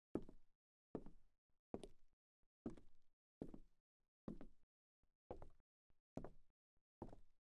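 Slow, evenly spaced knocking, about nine knocks a little under a second apart, each with a short echoing tail.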